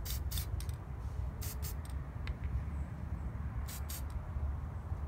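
Aerosol spray-paint can of black paint hissing in short bursts, several in quick succession, in groups near the start, about a second and a half in, and near the end, with a steady low rumble underneath.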